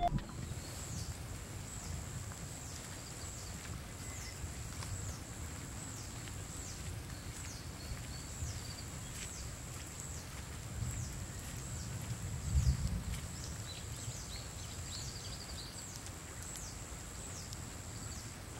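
Outdoor garden ambience: a small creature's high, thin, falling chirps repeat about once or twice a second over a steady high-pitched hum, with a low wind-like rumble that swells briefly about two-thirds of the way through.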